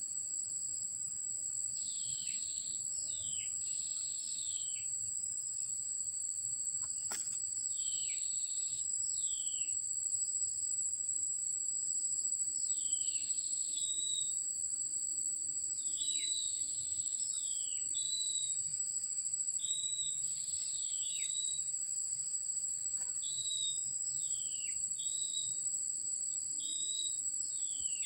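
Insects trilling in a steady, high-pitched drone, with a bird repeating short downward-sliding calls every second or two.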